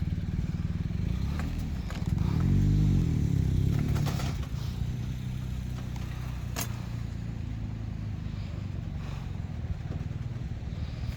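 Car engine and road noise, a steady low hum. About two seconds in the engine swells louder, its pitch rising and then falling. A sharp click comes partway through.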